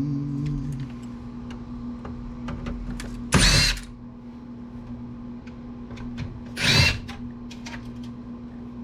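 Cordless drill-driver spinning in two short bursts, about three seconds apart, backing screws out of an old computer's case. Light clicks of parts being handled come between the bursts over a steady low hum.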